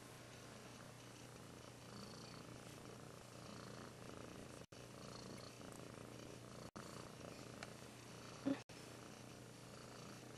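Russian Blue cat purring softly and steadily while held on a lap. About eight seconds in there is one short thump, and the sound drops out for an instant a few times.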